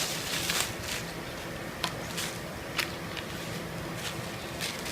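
Sealed plastic packaging of small toy figures being handled: a few short, light clicks and rustles over a steady low background hiss.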